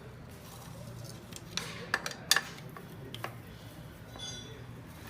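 Metal tools clinking and tapping, with a few sharp clinks around two seconds in and a short metallic ring near the end, over a steady low hum.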